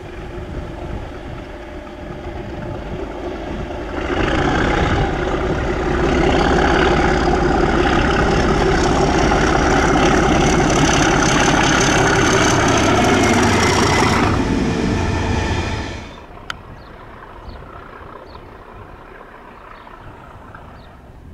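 Class 37 diesel-electric locomotive, with its English Electric V12 engine, passing close under power at the head of a freight train. The engine sound builds over the first few seconds and stays loud, with a high whistle over the top, then drops sharply about three-quarters of the way through to a faint rumble.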